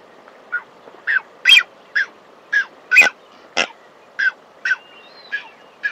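Blue-footed booby calling: a rapid series of short, repeated calls, about two a second.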